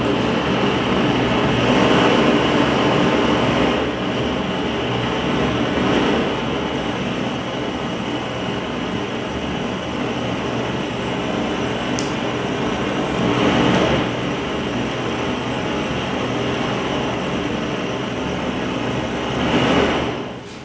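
Gas blowtorch flame playing on burning plastic headphones: a steady rushing noise that swells a few times, with one brief sharp click about twelve seconds in.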